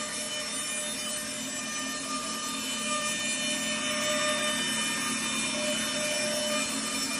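Stenner band resaw running steadily, its powered feed rollers drawing a white oak board past the blade to resaw it from 4/4 stock down to 3/4 inch. The machine sound is steady, with a faint whine that comes and goes.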